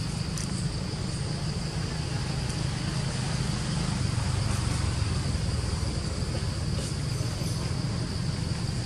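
Steady high-pitched insect drone over a constant low rumble, with a few faint ticks.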